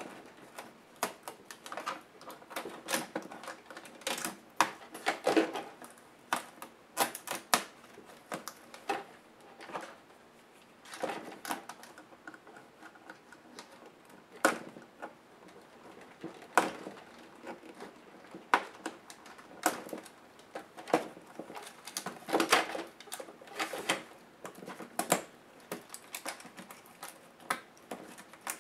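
Irregular plastic clicks, taps and small knocks from hands and small tools working on a partly disassembled laptop's top case and ribbon-cable connectors.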